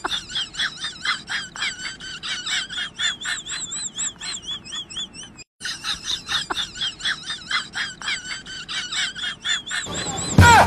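Comic background sound effect of rapid warbling, whistle-like chirps, several a second, with a short break about halfway through. A louder sudden sound comes in near the end.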